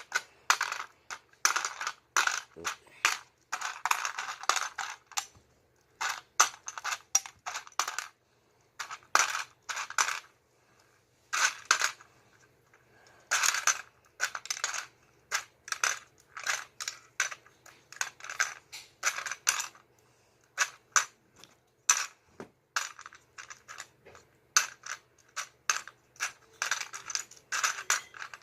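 Plastic Lego bricks clicking and clattering in quick, irregular bursts as a built model is pulled apart and handled.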